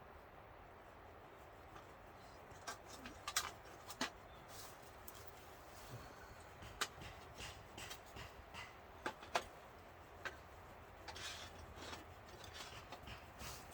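Kindling twigs snapping and crackling at a newly lit campfire: irregular sharp cracks, several close together a few seconds in and again later.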